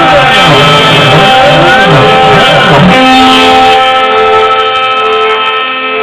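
Background music led by an electric guitar, with held tones that sweep up and down in a repeating pattern.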